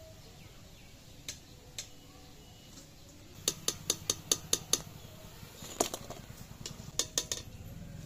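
Steel slotted ladle clinking against an iron kadai while fried palm-fruit fritters are lifted out of the oil. Two single clinks, then a quick run of about seven taps a little before halfway, then more scattered clinks.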